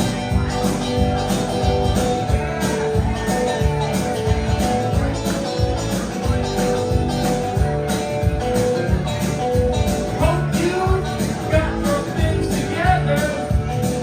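Background music: a guitar-driven rock/country song with a steady beat, a singing voice coming in near the end.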